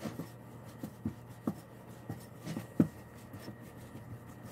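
Pizza dough being kneaded by hand in a glass bowl: irregular soft, dull thuds and pats as the dough is folded and pressed down against the bowl. The loudest press comes a little before the three-second mark.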